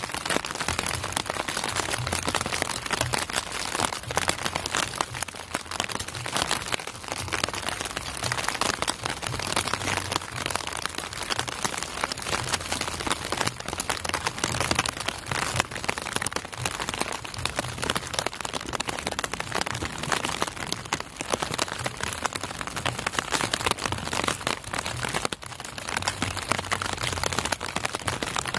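Steady rain: a dense patter of raindrops falling close to the microphone.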